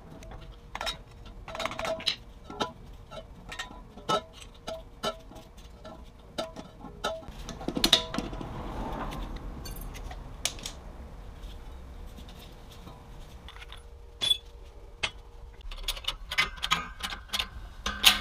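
Metal hand tools, snap ring pliers and a pick, clicking, tapping and scraping against the steel wheel-bearing bore of a strut upright, in a run of sharp irregular clicks with a longer scrape about eight seconds in. Quiet background music plays underneath.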